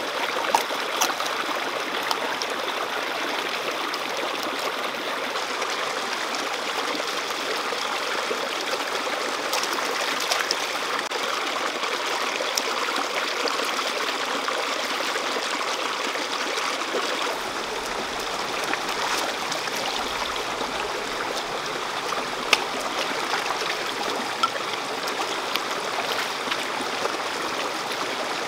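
Shallow stream running over rocks: a steady rush of water, with a few sharp ticks here and there.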